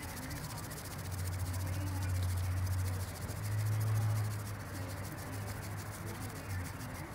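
Bamboo tea whisk (chasen) briskly whisking matcha in a ceramic tea bowl: a rapid, even scratchy brushing. A low hum runs underneath, louder in the first half.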